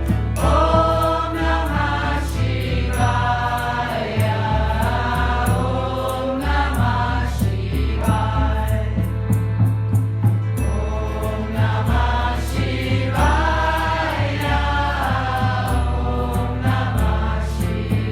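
Devotional mantra chanting in kirtan style: voices sing drawn-out phrases over a steady bass line and regular light percussion.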